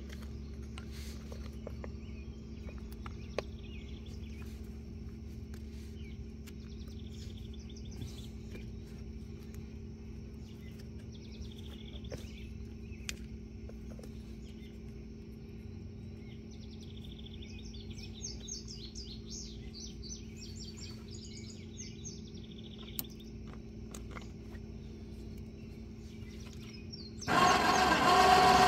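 Electric ATV winch motor, run straight off a car battery, starts abruptly near the end and runs loudly with a steady whine. Before it, a steady low hum with a few faint clicks, and birds chirping about two-thirds of the way through.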